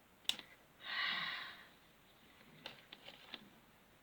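Small plastic figure parts being fitted together: a sharp click, then a breathy exhale lasting under a second, then a few small plastic clicks and taps near the end.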